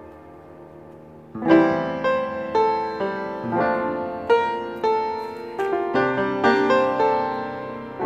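Background piano music: a soft held chord at first, then from about a second and a half in a melody of struck notes, roughly two a second.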